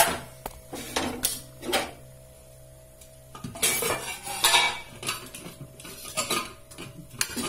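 Metal cookware clattering: a steel ladle and steel pots knocking and clinking, several sharp knocks in the first two seconds, a scraping stretch in the middle and a couple more knocks near the end.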